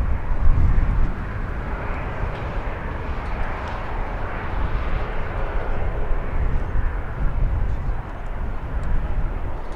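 Jet airliner's engines at takeoff power: a steady jet roar with deep rumble underneath.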